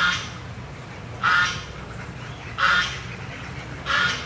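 A duck quacking four times, evenly spaced just over a second apart, over a steady low background noise.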